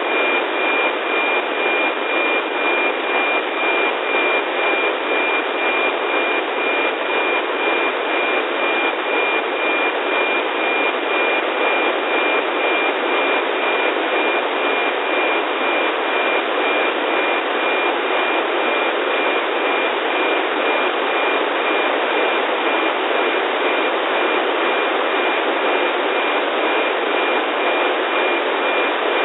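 NOAA 15 weather satellite's APT signal on 137.62 MHz, picked up by an RTL-SDR dongle and played as FM-demodulated audio: a steady high tone over loud radio hiss.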